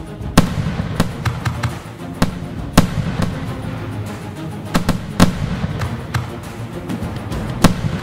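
Fireworks shells bursting in sharp bangs at uneven intervals, several in the span, over background music.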